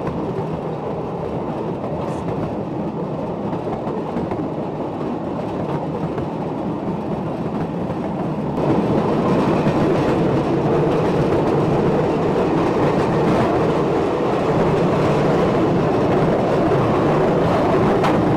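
Narrow-gauge slate wagons of a gravity train freewheeling downhill, their wheels running on the rails with a steady rumble and clatter. It grows louder about eight and a half seconds in.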